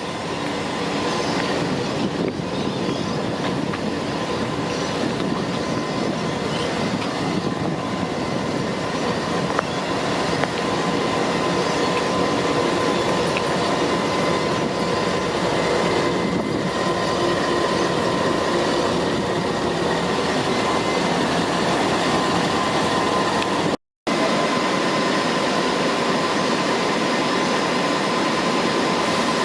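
A train running on rails: steady rumble and rail noise with faint sustained high tones, and a short break about 24 seconds in.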